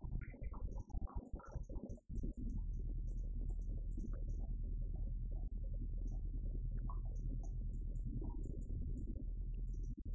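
Bulldozer diesel engine running steadily under load, a low drone with a brief dropout about two seconds in.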